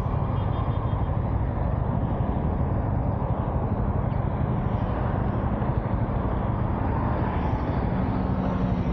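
Motorcycle engine running at idle or low speed, with the steady rumble of road traffic around it.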